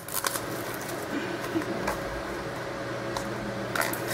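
Steady low machine hum with a thin constant tone, and a few faint light clicks.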